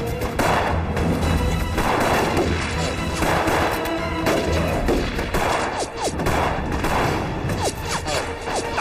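Gunfight sound effects: a rapid, irregular exchange of rifle and pistol shots, over dramatic background music.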